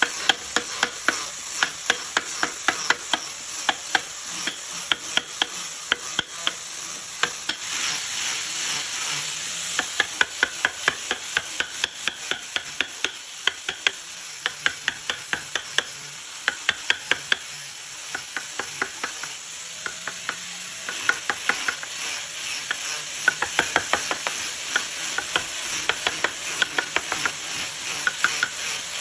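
Hand carving of wood with a chisel: runs of quick, sharp taps, several a second, over a steady scraping hiss.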